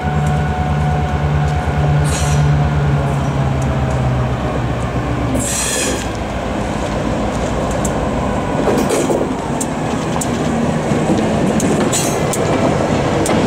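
EMD GP9 diesel locomotive, with its 16-cylinder two-stroke 567 engine, rolling slowly past with its train. A steady low engine drone gives way about five seconds in to rolling wheel and rail noise, with a few brief high-pitched bursts.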